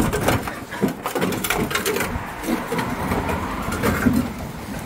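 Bubble wrap and plastic film crinkling and rustling as wrapped mini claw machines are handled, with frequent small clicks and knocks.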